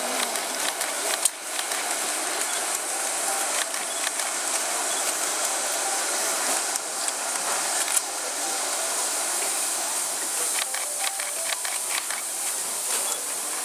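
A set-piece firework, a row of fountains strung along a wire, burning with a steady rushing hiss, with scattered crackles and pops through it.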